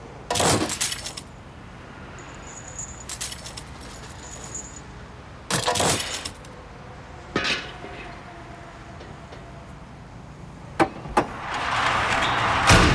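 Small metal objects jangling and clinking in several separate bursts, some with a thin high ringing. Near the end come two sharp clicks, then a rising rush of noise that ends in a loud knock.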